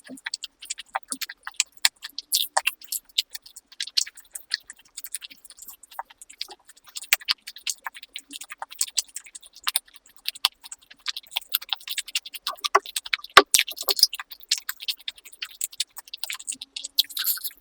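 Close-miked chewing and crunching of food, a dense, irregular run of short crisp clicks and smacks.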